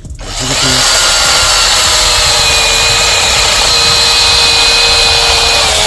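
Cordless 21-volt mini chainsaw running, its electric motor and chain whining at a steady high pitch; it starts abruptly a moment in.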